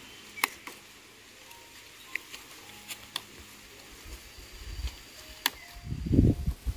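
Several light, sharp clicks and taps over a faint outdoor background, then low gusts of wind buffeting the microphone from about four seconds in.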